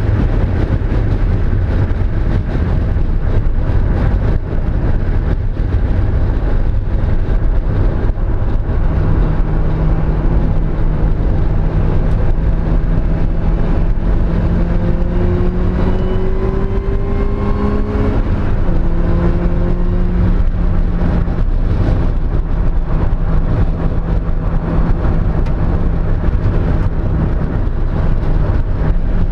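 Mazda Miata four-cylinder engine pulling hard, its pitch climbing steadily for several seconds, then dropping sharply at a gear change about two-thirds of the way through and holding steady, under a heavy low rumble. The engine has a misfire on cylinder 2.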